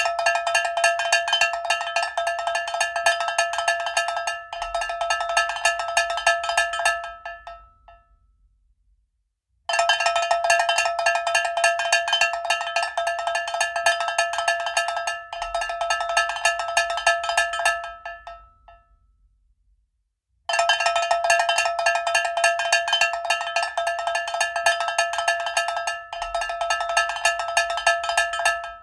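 Cowbell rung in rapid, continuous strikes, three runs of about eight seconds each that slow to a few last strikes and stop, with short silent gaps between them.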